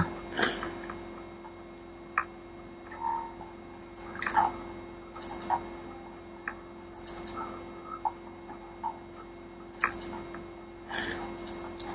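Quiet room tone: a steady low electrical hum with a dozen or so faint, short clicks and ticks scattered through it.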